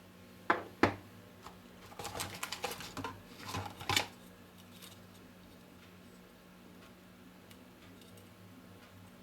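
Handling of a phone and its packaging: two sharp clicks in the first second, then a flurry of small clicks, clatter and rustling for about two seconds, after which only a faint ticking remains.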